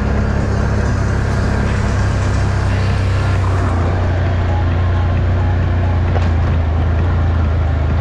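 Off-road ATV engine running steadily, a loud deep drone with a slight change in engine note about halfway through.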